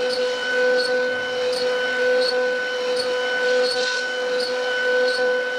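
CNC router spindle carving wood: a steady high whine with several fixed tones, swelling and easing about once every three-quarters of a second as the cutter moves through its passes.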